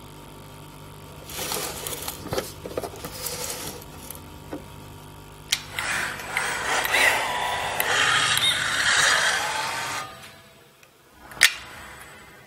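A short film's soundtrack playing over a hall's speakers: mechanical clicking, rattling and scraping over a steady low hum. It grows noisy from about one to four seconds in, and again from about five and a half to ten seconds, then drops away before a single sharp click near the end.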